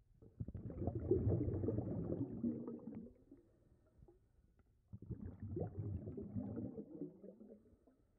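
Scuba diver's exhaled bubbles from a regulator, heard underwater: two bubbling rumbles, the first starting about half a second in and lasting about three seconds, the second starting about five seconds in, with quiet between them.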